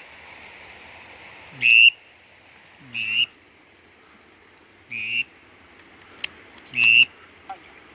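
Short whistled waterfowl calls, four of them spaced one to two seconds apart, with a couple of faint sharp clicks shortly before the last one.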